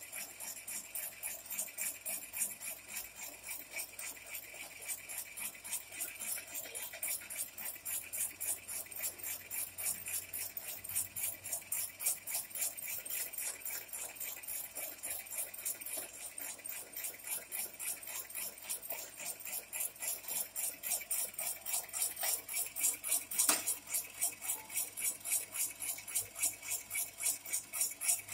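Electric jackfruit slicing machine running with a steady rhythmic clatter of metal blades, about three or four strokes a second, as it cuts jackfruit pieces. It gets somewhat louder in the last few seconds.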